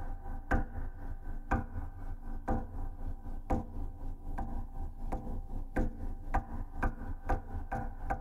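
Suspense score: sharp clock-like ticks about once a second over a steady drone of held tones, the ticks quickening to about two a second halfway through.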